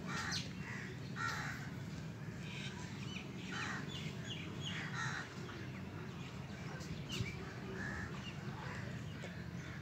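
Birds calling in short, scattered calls, several every second or two, over a steady low hum.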